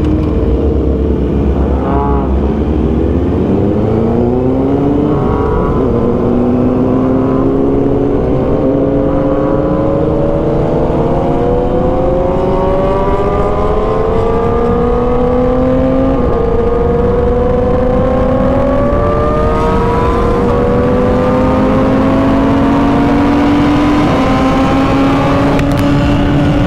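Motorcycle engine pulling steadily through the gears: its pitch climbs slowly, drops back at each upshift, then climbs again, several times over. Steady wind rumble on the microphone runs underneath.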